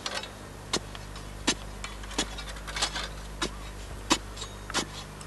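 A long digging stick driven repeatedly into hard, stony earth while digging out a hole. About eight sharp strikes come roughly one every two-thirds of a second.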